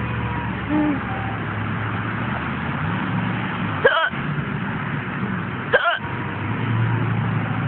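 A person hiccuping twice, about two seconds apart, each a short, sharp vocal squeak rising in pitch, over a steady low hum.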